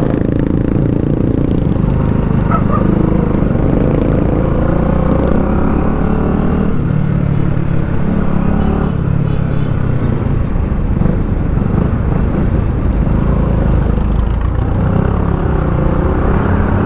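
Motorcycle engine running steadily while riding at speed through traffic.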